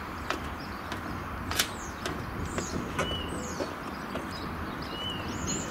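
Diesel multiple unit train approaching slowly: a steady low rumble with scattered sharp clicks, the loudest about a second and a half in.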